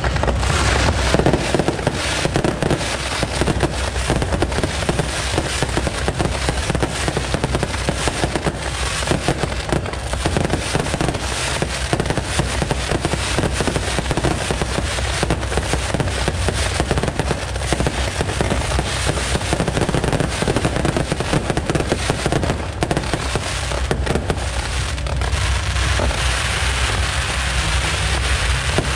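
Fireworks display: a dense, unbroken barrage of launches and aerial shell bursts, bang after bang with no pause.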